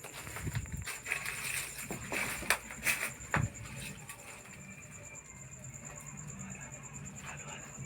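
Footsteps and rustling as people move carefully, with a cluster of sharp knocks and clicks in the first few seconds, over a steady high-pitched whine.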